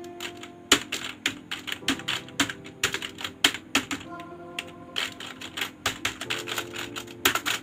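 Typing on a computer keyboard: irregular key clicks begin about a second in and run on, with a brief pause around the middle.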